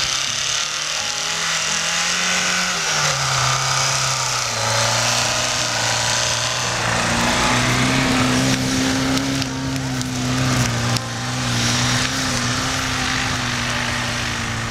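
Lada Niva's four-cylinder engine held at high revs as its wheels spin in deep snow. The pitch drops about three seconds in, then holds steady.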